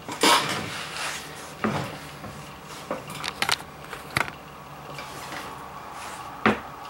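Handling noises on a wooden desk: a loud scrape just at the start, then scattered light clicks and knocks, the loudest near the end, with a faint steady hum coming in about three seconds in.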